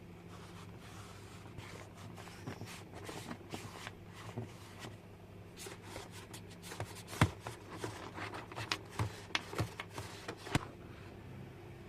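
Irregular rustling and light clicks of small objects being handled, with a sharper click about seven seconds in, over a low steady hum.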